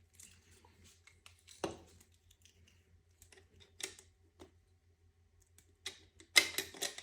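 Scattered small clicks and light knocks of metal and plastic parts being handled as a fuel injector is worked back into place in a fuel rail, with a louder cluster of clatter near the end.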